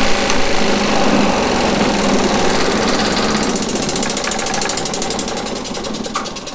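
Delta drum sander's motor switched off and its cloth buffing wheel coasting down: the whir fades gradually, and a rapid, even pulsing comes in and slows as the wheel spins down.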